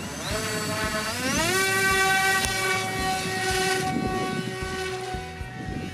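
Electric motor and propeller of an X-UAV Talon mini RC plane throttled up for a hand launch: a whine that rises in pitch over about a second, then holds steady as the plane climbs away and fades near the end.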